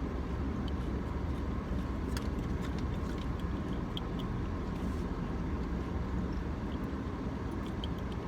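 Steady low rumble inside a car's cabin, with a few faint, short clicks scattered through it.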